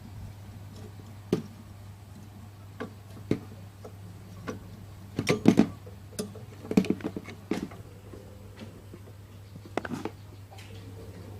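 Irregular clicks and small knocks of parts and tools being handled while a welding machine is reassembled, with a cluster of clattering knocks about halfway through, over a steady low hum.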